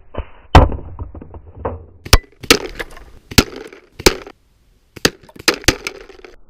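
BB guns firing: about a dozen sharp cracks and snaps, unevenly spaced, with a brief dead-silent gap a little past the middle.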